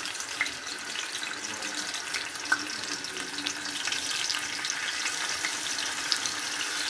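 Chicken and vegetable skewers frying in oil on a hot tawa: a steady sizzle with fine crackles that builds slightly as more skewers go down.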